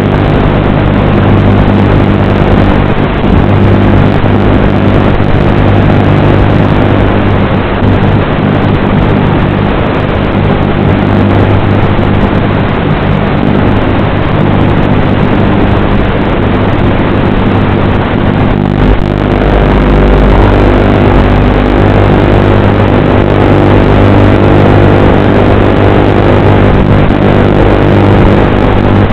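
Electric motors of a small FPV radio-controlled craft running steadily: a loud, even motor hum with a fixed pitch. There is a brief disturbance about two-thirds of the way through, followed by a low rumble.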